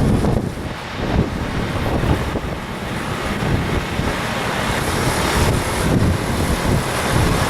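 Strong, gusty wind buffeting the microphone: a loud low rumbling rush that swells and eases every second or so.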